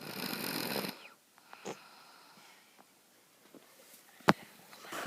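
A sleeping person snoring: one loud snore about a second long at the start, then quieter breathing. A single sharp click sounds about four seconds in.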